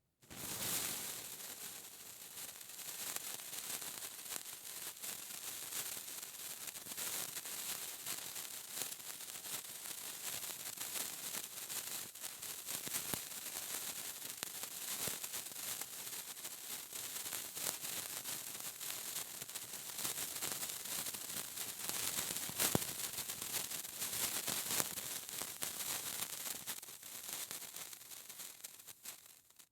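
A lit sparkler burning: a steady fizzing hiss packed with fine crackles and pops, which starts suddenly near the beginning and dies away just before the end as it burns out.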